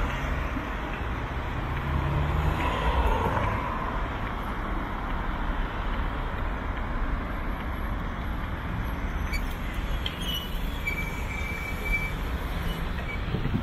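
City road traffic: motor vehicles running and passing on a street, a steady mix of engine rumble and tyre noise.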